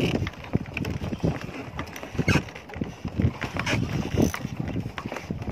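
Strong wind buffeting the microphone and rough waves against a small fishing boat, with irregular knocks and thumps.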